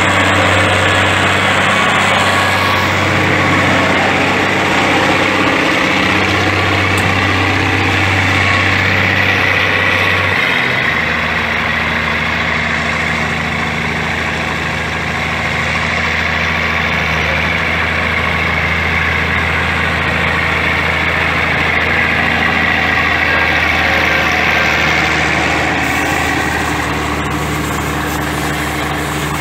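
Heavy diesel engine idling steadily; about ten seconds in its low note drops to a lower, steadier pitch.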